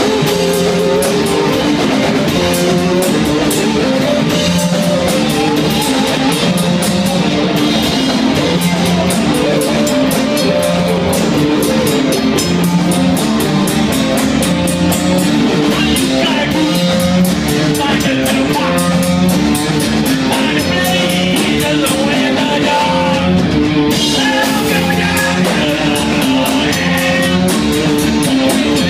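Live rock band playing loud: distorted electric guitars and bass on a repeating riff over a drum kit with steady cymbal hits. Toward the end the cymbals stop for a moment, then come back in.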